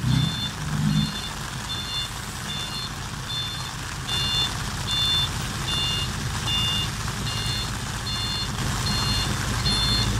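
Tipper truck's reversing alarm beeping steadily, about one and a half beeps a second, over the low running of its engine.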